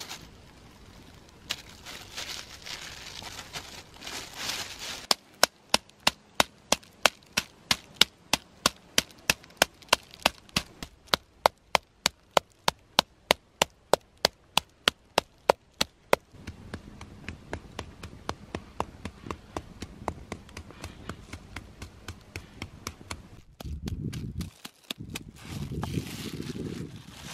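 Metal meat tenderizer mallet pounding beef slices through a plastic bag on a wooden stump: a plastic bag crinkles first, then comes a long run of sharp, even blows about three a second, followed by softer, duller blows.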